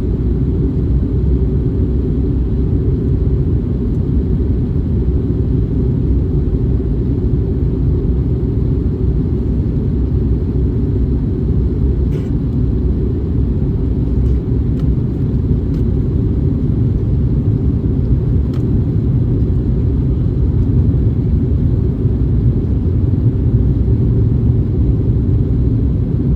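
Cabin noise of an Airbus A321neo: a steady low roar of engines and airflow, with a few faint clicks midway.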